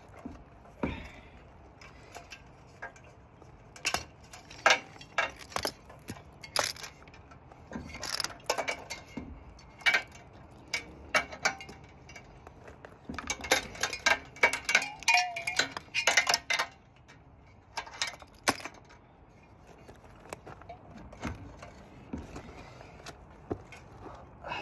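Metal clinking and clanking as a mini bike's muffler and exhaust are worked loose by hand and with tools: irregular sharp clicks and knocks, with a dense run of rattling, ringing clinks a little past the middle.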